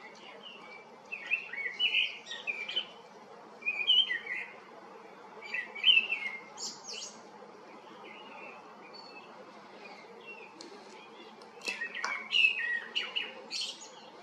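Birds chirping in short bursts of quick calls: a little after a second in, around four and six seconds in, and again near the end, over steady faint background noise.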